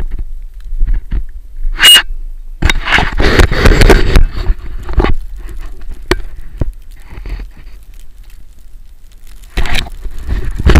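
Edges scraping and sliding over packed snow as the camera rides down a ski run, in loud bursts about three seconds in and again near the end, over a steady low rumble of wind on the microphone. A sharp click about two seconds in.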